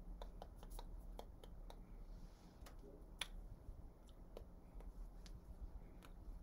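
Soft, irregular clicks and taps from a person signing, over a faint low hum; one sharper click a little past three seconds in.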